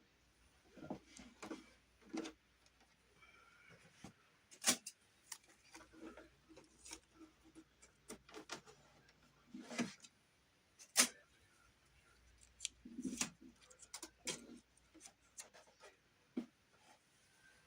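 Irregular light clicks and taps with some rubbing, the handling of small pieces of wood trim and tools, with a few sharper knocks.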